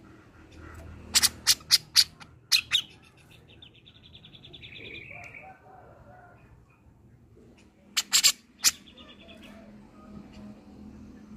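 Cucak jenggot (grey-cheeked bulbul) calling: a quick series of sharp, loud notes, each series followed by a short rattling trill. This happens twice, about a second in and again near eight seconds.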